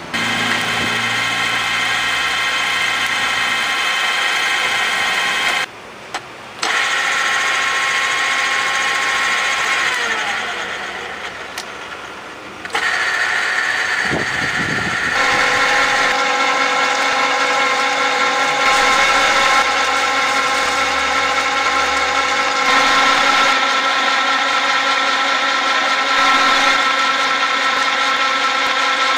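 KBC RD-75 radial drill press running: its 2 hp motor and geared head give a steady whine of several tones. There is a short break about six seconds in and a dip and change of tone around halfway. In the later part the drill is cutting into metal.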